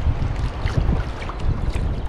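Wind buffeting the microphone in a loud, uneven rumble, with water lapping and splashing against a kayak's hull.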